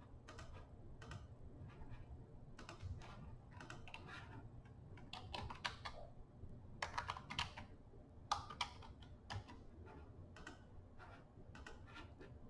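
Faint typing on a computer keyboard, in irregular bursts of key clicks, over a steady low hum.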